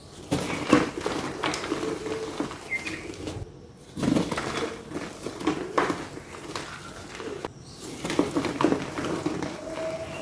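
Black-dyed gym chalk block with white paste crushed and crumbled by hand: crunchy, powdery crackling in clusters of strokes, with two short breaks about three and a half and seven and a half seconds in.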